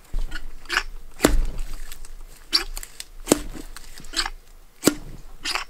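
Sharp metallic clicks and knocks, about seven spread over several seconds, as the steel parts of a portable hydraulic ram cylinder are handled and an attachment is threaded onto its rod.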